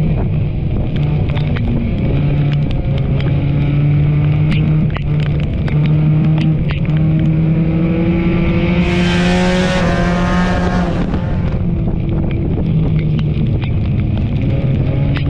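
Race car engine running steadily under load on the track, its pitch drifting slowly up and down, with scattered sharp clicks and knocks. A louder rushing noise swells and fades a little past halfway.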